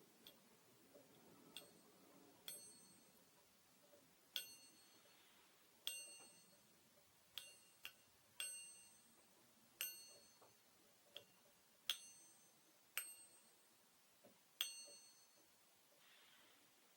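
Small ringing object tapped lightly about a dozen times at an uneven pace, each tap giving a short, high ping that fades quickly.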